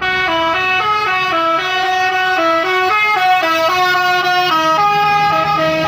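Telolet basuri horn of a tour bus playing a quick melody: loud, horn-like notes stepping up and down a few times a second. It starts suddenly and keeps going without a break.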